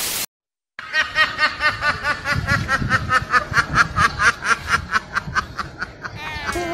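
A brief burst of TV-static hiss and a moment of silence, then a group of domestic ducks quacking rapidly in short, evenly spaced calls, about five a second, easing off near the end.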